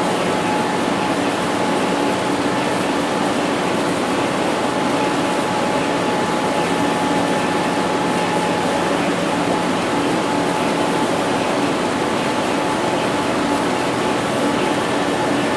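Laboratory ambience sound effect: a steady hum of machinery and air noise with a few faint constant tones running through it, with no distinct events.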